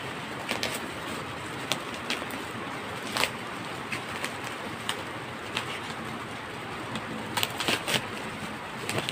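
Plastic bubble-wrap packaging being cut with a knife and pulled apart by hand, crinkling with scattered sharp crackles, several close together near the end, over a steady background noise.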